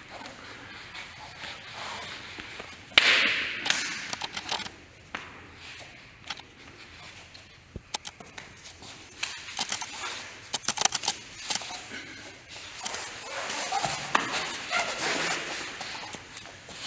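Hands and forearms slapping and brushing against each other in a Wing Tsun lat sao drill: scattered sharp slaps, a loud swish about three seconds in, and a quick run of slaps around ten to eleven seconds.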